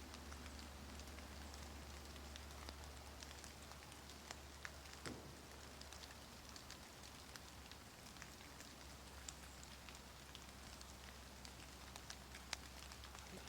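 Near silence: faint steady hiss with a low hum and scattered light ticks and clicks.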